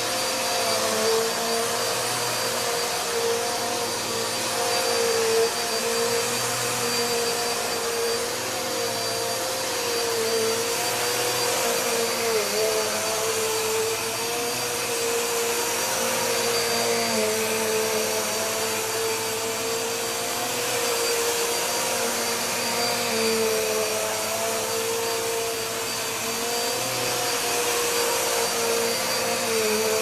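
Electrolux Powerlite Z2255 1700 W bagged upright vacuum cleaner running as it is pushed back and forth over carpet: a loud, steady rush of air under a high whine from its budget 'screamer' motor, which has little sound insulation. The pitch dips slightly now and then as the machine is moved.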